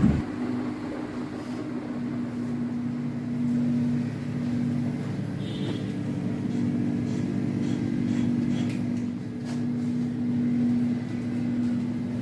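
A steady low mechanical hum with a held tone, dipping briefly about five and about nine seconds in, with a faint short high beep about five and a half seconds in.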